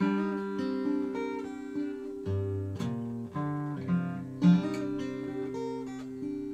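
Acoustic guitar with a capo on the third fret, fingerpicked in A minor: single picked notes ringing over a plucked bass line.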